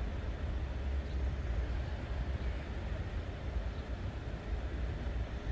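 Steady low rumble of outdoor background noise, strongest in the deep bass and wavering in level: wind on the microphone mixed with road traffic.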